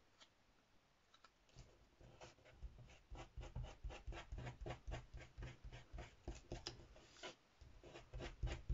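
Fingers pressing and rubbing a glued cardstock piece into place: faint, quick scratchy rubbing strokes, several a second, starting about two seconds in.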